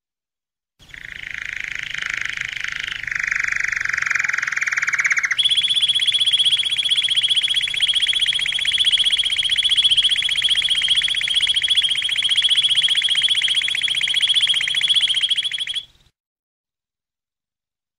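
Domestic canary singing one long unbroken run of very fast trills: a lower, buzzy roll for about four seconds, then a higher, steady trill held for about ten seconds that stops abruptly.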